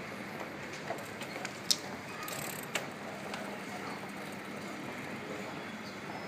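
Steady street background noise with scattered clicks and ticks, one sharp click about a second and a half in and a smaller one near the three-second mark.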